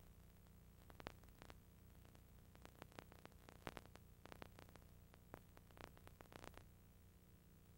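Near silence: a faint steady hum and hiss with scattered faint clicks.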